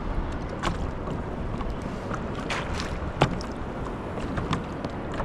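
Water sloshing and lapping against a kayak's hull, with a few short sharp clicks, the sharpest a little after three seconds in.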